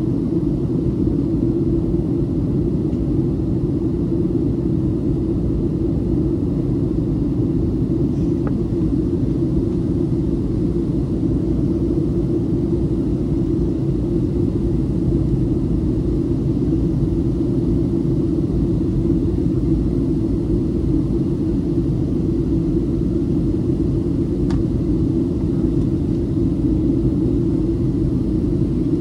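Steady deep drone inside the cabin of a Boeing 737-500 airliner in flight: engine and airflow noise, unchanging throughout.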